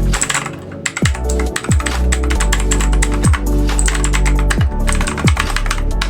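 Rapid clicking of keys being typed on a Leaven K880 mechanical keyboard, over electronic background music with a repeating falling bass sweep.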